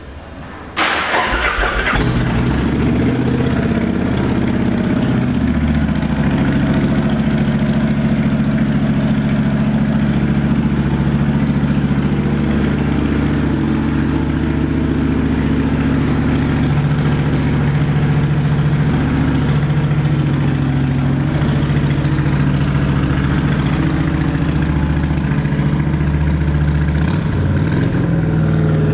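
Kawasaki Vulcan 1600 Mean Streak's V-twin engine starting about a second in with a short burst from the starter, then idling steadily through aftermarket Vance & Hines offset exhaust pipes.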